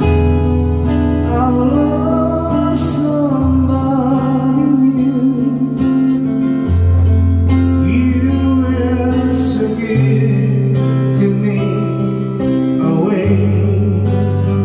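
Live music: acoustic guitar strumming with sustained accompaniment and a melodic line over changing bass notes, part of a song's instrumental stretch.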